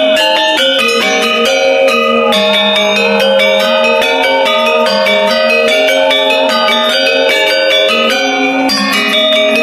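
Balinese gender wayang ensemble: bronze-keyed gender metallophones struck with two disc-headed mallets per player in fast, dense interlocking figuration. The ringing tones overlap and sustain between the strikes.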